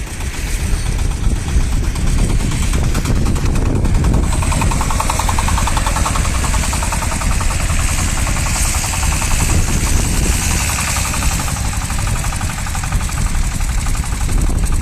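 Shifeng SF-240 minitractor's single-cylinder diesel engine running steadily with a fast, even chug, driving a rear rotary tiller through garden soil.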